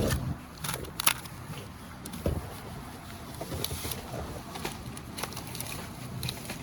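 Supermarket background noise: a low steady hum with scattered clicks and knocks, the sharpest about a second in and a dull thump a little after two seconds.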